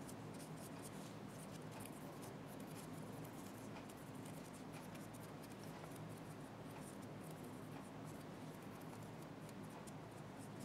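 Faint dry rubbing and small scratchy ticks of a cloth wiping excess grease off a small metal part, more frequent in the first half, over a steady low hum.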